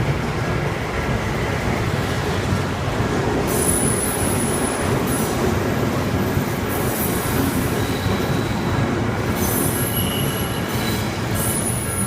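Odakyu Line electric train running past on the rails, a steady loud rumble of wheels, with short high-pitched wheel squeals coming and going, first about three and a half seconds in and again near the end.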